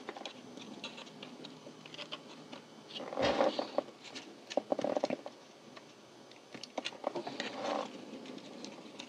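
Small plastic clicks, taps and scraping as fingers push a cab interior down into a model locomotive's plastic shell, in irregular bursts. The loudest scraping comes about three seconds in and again around five seconds.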